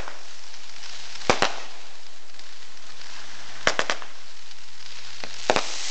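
Fireworks going off: sharp bangs in small clusters of two or three, about seven in all, over a steady hiss.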